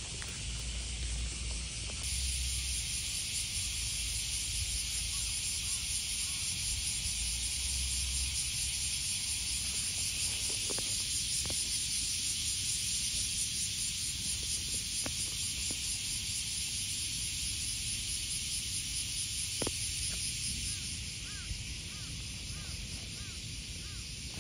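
Steady high-pitched hiss of an insect chorus over a grass field, with a fine rapid pulsing in it and a few faint ticks. The hiss gets louder about two seconds in.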